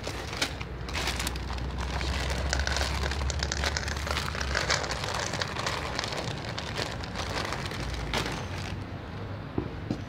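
Plastic zip bag of dry cat kibble crinkling and rustling, with many small crackles of kibble rattling and being crunched, as a hungry cat pushes its head into the bag to eat.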